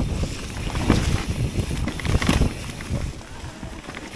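Wind buffeting the action camera's microphone and e-mountain-bike tyres rolling over wet leaves and mud, with short knocks and rattles as the bike goes over bumps. It gets quieter about three seconds in.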